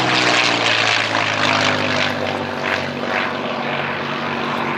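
P-51D Mustang's Packard Merlin V12 engine running hard as the fighter flies overhead. Its pitch drops just as it passes, loudest in the first second, then holds a steady drone.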